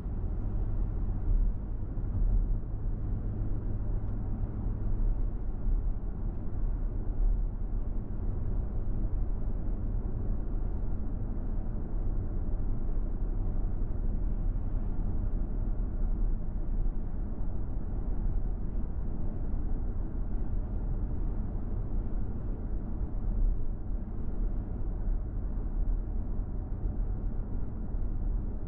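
A car driving along a city road: a steady low rumble of engine and tyre noise that holds at an even level throughout.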